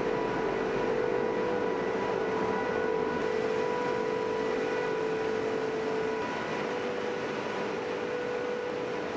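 Icebreaker engine-room machinery running: a loud, steady drone with a constant whine on top, one strand of which drops out about six seconds in.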